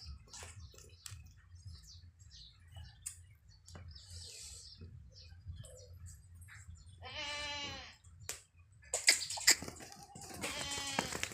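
Goats bleating: two long drawn-out bleats in the second half, with sharp clicks and knocks just before the second bleat and a low rumble underneath.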